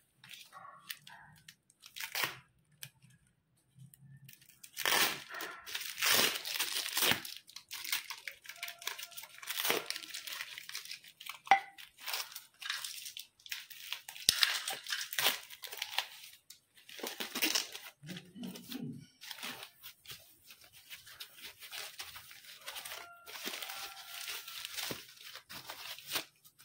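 Foam packing wrap and brown packing tape being torn and pulled off a wrapped bicycle seatpost, in irregular bursts of tearing and crinkling.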